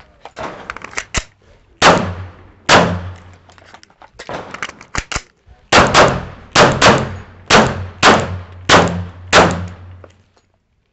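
A Glock 21 .45 ACP pistol firing about ten shots. Two come singly early on, then a quick string of about eight follows from about six seconds in, each a sharp crack with a short echo.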